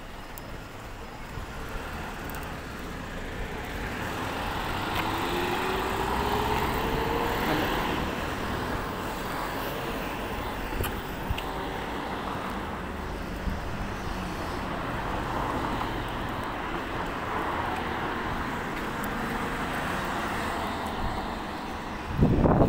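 Road traffic passing on a street, one vehicle rising in pitch as it accelerates past about five seconds in. Wind buffets the microphone loudly near the end.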